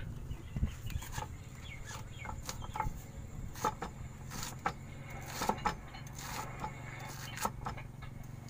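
Cleaver chopping cabbage on a wooden cutting board: irregular sharp knocks, with chickens clucking close by.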